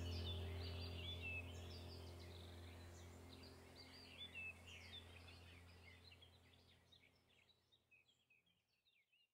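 Background soundtrack of birdsong chirps over a low steady drone, fading out gradually to silence near the end.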